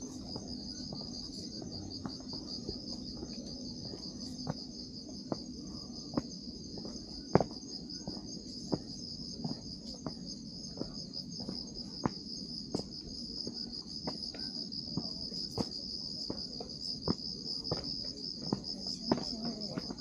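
Night insect chorus: a steady, high, pulsing trill. Scattered sharp taps sound over it every half second or so, the loudest about seven seconds in.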